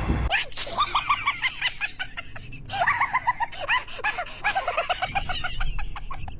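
Background music with a quick, regular beat and rapid pitched vocal-like notes.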